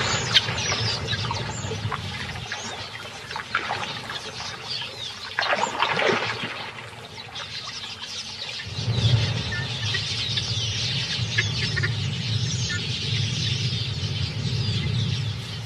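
Birds chirping and calling, with a low rumble joining in about nine seconds in.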